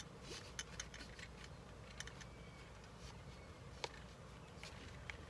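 Faint, irregular clicks from a 2010 Nissan Versa seat belt retractor as its webbing is pulled out and let back in, testing the freshly rewound retraction spring. There are several clicks in the first second, then a few more spread through the rest.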